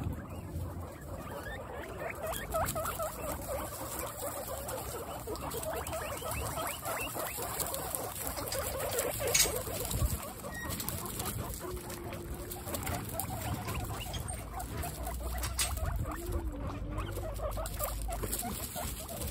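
Several guinea pigs close up, making many soft, short repeated calls and rustling through straw, over a steady patter of rain. A single sharp knock comes about nine seconds in.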